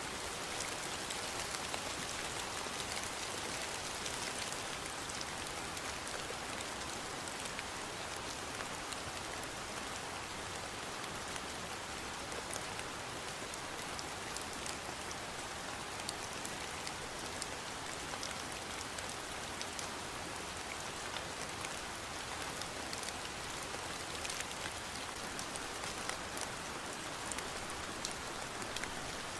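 Steady rainfall, drops pattering on a surface with fine scattered ticks and no thunder.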